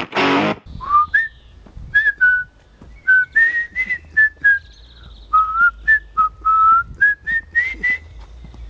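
Electric guitar music cuts off about half a second in; then a man whistles a tune in short, separate notes.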